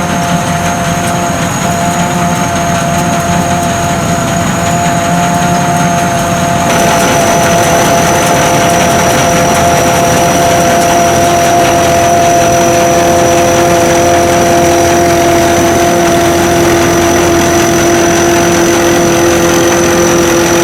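SAKPATTANA SS-200 mini combine harvester running at work, its engine and machinery making a steady drone with a thin high whine. About seven seconds in the sound steps up louder and its whine shifts pitch.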